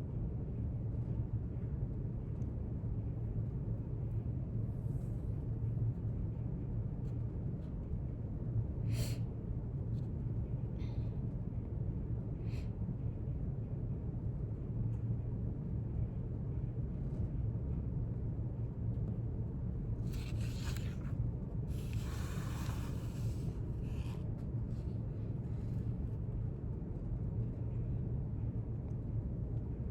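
Steady low room hum of library ambience. Over it come a few faint brief clicks and rustles, with a longer soft rustle about two-thirds of the way in.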